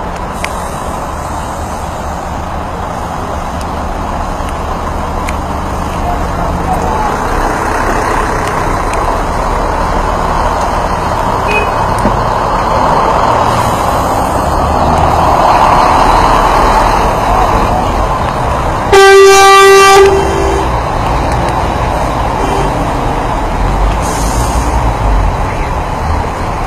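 Steady traffic noise from a line of idling trucks and buses. About 19 seconds in, a vehicle horn sounds once, a single steady note for about a second, louder than everything else.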